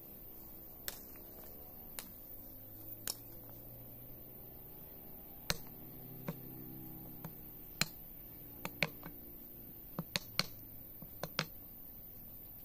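A machete chopping and trimming a forked green branch against a wooden board to shape a slingshot fork: sharp, irregular knocks, some in quick pairs, growing more frequent toward the end.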